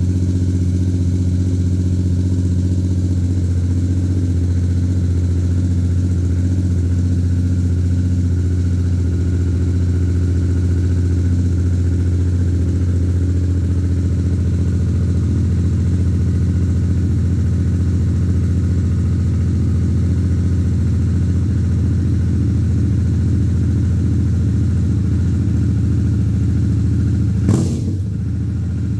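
Harley-Davidson Sportster S's Revolution Max 1250T V-twin engine idling steadily, with one sharp click near the end.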